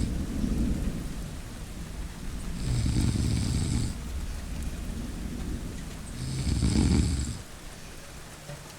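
A person snoring in slow, even breaths, about one snore every three and a half seconds, over steady rain and a low rumble of thunder.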